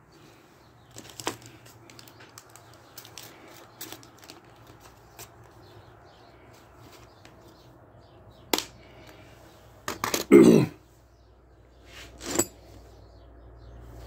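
Scattered small clicks and rattles of a plastic puncture repair kit box and its contents being handled on a workbench. A few sharper knocks come later, and a louder short burst about ten seconds in.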